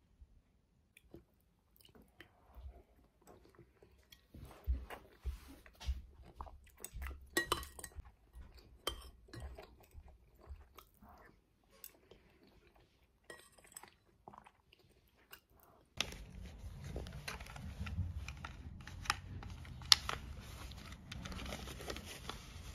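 Scattered light clicks and knocks close by, irregular and short. About sixteen seconds in, a steady background hiss and low hum comes in suddenly under further clicks.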